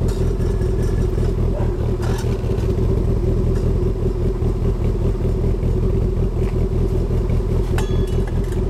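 Toyota MR2 Turbo's 3S-GTE turbocharged four-cylinder running steadily at a constant speed through a Berk exhaust fitted with two 4-inch silencers. The note is greatly quieted, close to the stock exhaust.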